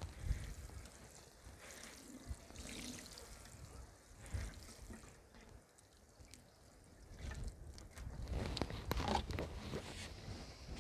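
Water from a watering can's rose sprinkling onto straw mulch in a soft, faint trickle, stopping before the end. A few short, louder sounds come about nine seconds in.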